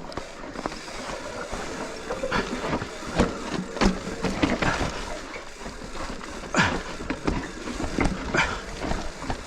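Mountain bike clattering and knocking on a rocky trail, with irregular knocks and rattles several times a second.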